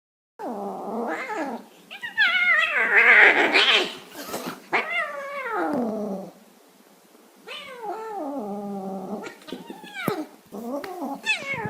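Cats fighting: long, wavering yowls and caterwauling with growls, the pitch sliding down at the end of each call. The loudest, shrillest screech comes about two to four seconds in, followed by a short lull and then more yowls.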